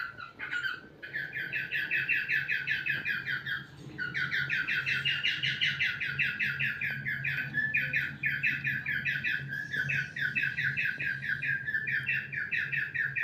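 Cockatiel chatter: a fast, unbroken run of short high chirps, with a brief pause about four seconds in.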